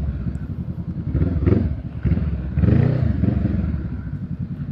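Motorcycle engine running at low speed in traffic, its firing pulses steady, with the engine note rising and falling briefly a little past halfway.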